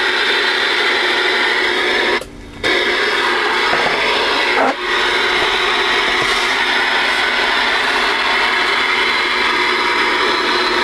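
Steady static and hiss from a Galaxy DX-2547 CB base station's receiver speaker while it listens on the air. The noise cuts out for about half a second about two seconds in.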